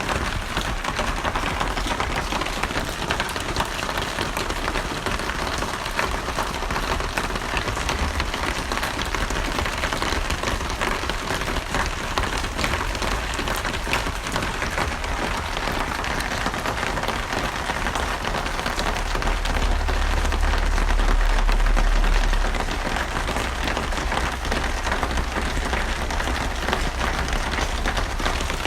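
Steady rain falling on a surface, a dense patter of drops. A low rumble underneath swells for a couple of seconds about two-thirds of the way through.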